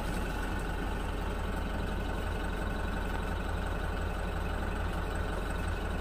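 Steady low rumble of the minibus's diesel engine idling.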